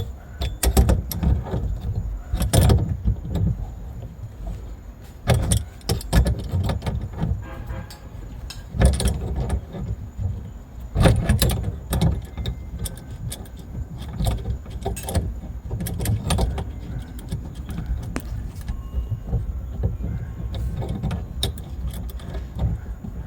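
Adjustable wrench knocking and clinking against the supply-line nut at a shutoff valve as it is tightened, irregular sharp clicks over low handling rumble.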